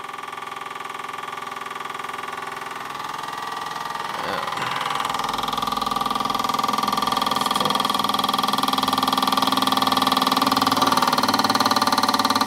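Scratch-built overtype model steam engine running fast under steam, a steady rapid beat that grows louder from about four seconds in.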